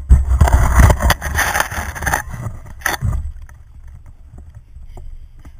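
Twigs and branches of a fallen tree scraping and crackling against a pole-mounted GoPro camera as it is pushed through them. The noise is loud for about three seconds, ending with a sharp crack, then fades to faint rustling over a low handling rumble.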